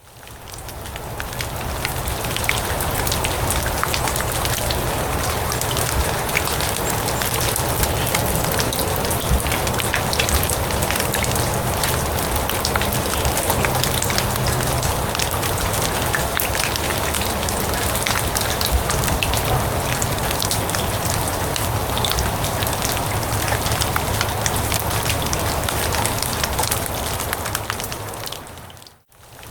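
Steady rain falling on grass: a dense hiss thick with small sharp drop ticks. It fades in over the first second or so and fades out about a second before the end.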